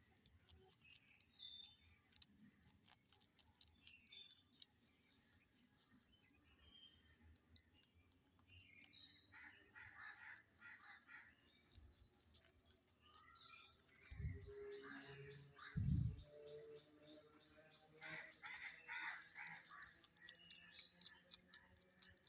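A rabbit chewing food: quick, crisp crunching clicks that come faster near the end, with birds chirping in the background. Two short low thumps come about two-thirds of the way through.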